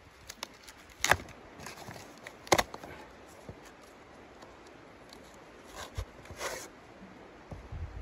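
Two sharp knocks about a second and a half apart, with scattered lighter clicks. A brief rustle with a dull thud comes near the end.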